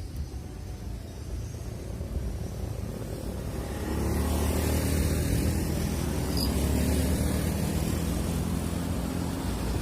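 Motor vehicle engine running with a low, steady rumble that grows louder about four seconds in and then holds.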